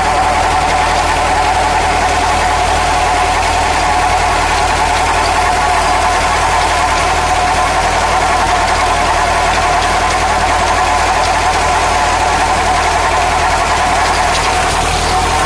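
Landini Rex 75 tractor engine running steadily while working a Yüksan hoeing implement between the rows.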